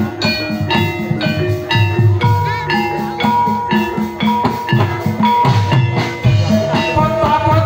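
Live gamelan accompaniment for a jaranan (kuda lumping) horse dance: struck metallophones ringing a repeated melody over steady drum beats.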